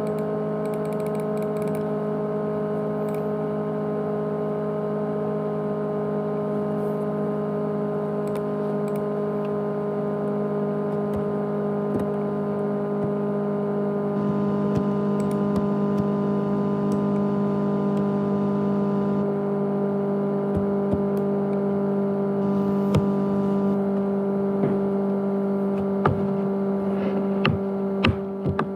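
Steady whirring hum of a 500 GB USB hard drive running with a laptop, made of several held tones, with a few sharp clicks in the last several seconds.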